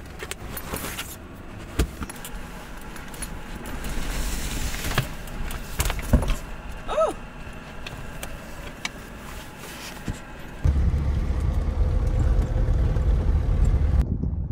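Rustling and handling noises: a sleeping bag and bedding being moved, with scattered clicks and a short squeak about seven seconds in. About ten seconds in, a loud, steady low rumble suddenly takes over.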